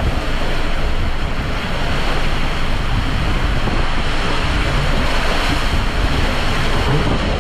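Water rushing and a double raft sliding through the enclosed tube of a water coaster: a loud, steady rush throughout.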